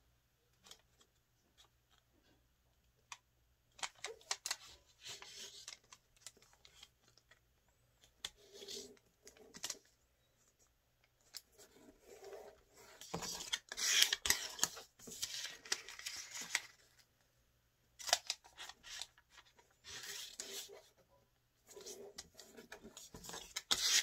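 A sheet of colored origami paper rustling and crinkling as it is handled and creased into a gate fold, both sides folded in to the centre line. It comes in irregular spells with short pauses between.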